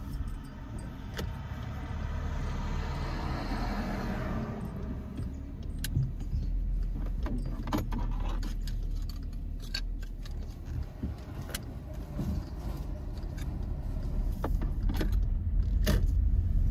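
A car being driven, heard from inside the cabin: a steady low engine and road rumble with scattered light clicks and rattles. About two seconds in, a rush of noise swells for a few seconds and fades.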